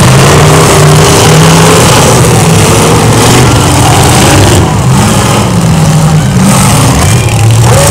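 Demolition derby cars' engines revving hard as the cars ram and push one another, loud, with the pitch rising and falling again and again.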